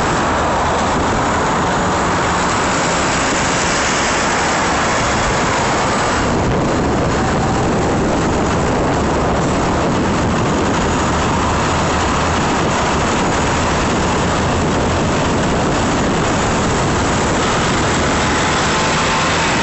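Steady, loud rush of wind and road noise from an e-bike riding at speed in city traffic, with a faint rising whine near the end.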